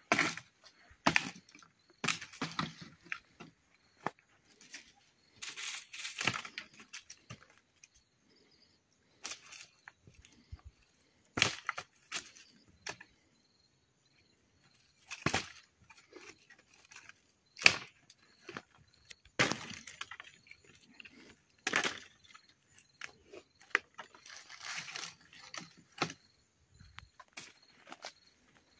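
Dry wood cracking and snapping: a dozen or so sharp cracks, a second or a few seconds apart, with rustling of brush between them.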